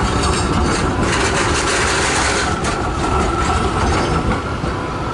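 Melbourne B-class articulated tram passing close by, its steel wheels rumbling steadily on the street rails, with a thin steady whine joining about halfway through.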